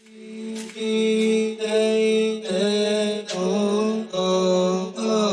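Background music fading in from silence: sustained held notes that step in pitch every half second to a second.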